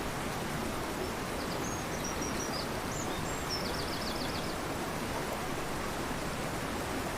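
Rushing river running steadily. About a second in, a small songbird sings one short high phrase over it, ending in a quick run of about seven repeated notes.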